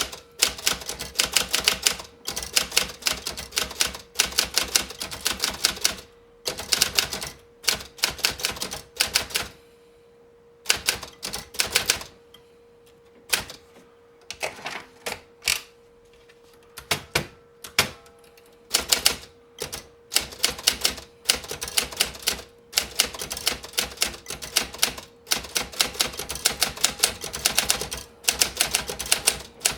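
Olympia Splendid 33 manual typewriter being typed on: fast runs of sharp key strikes with short pauses, slowing to scattered single strikes for a few seconds about a third of the way in. The type bars strike a rubber platen that the owner believes has gone hard.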